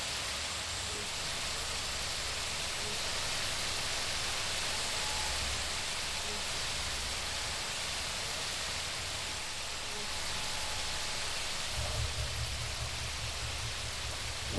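Hot oil sizzling steadily as batter-coated eggplant slices deep-fry in a wide wok. A low rumble joins in near the end.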